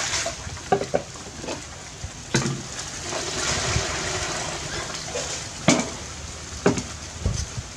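Water poured into a plastic basin, splashing and hissing, first from a plastic dipper and then from a kettle jug. A few sharp knocks break in along the way.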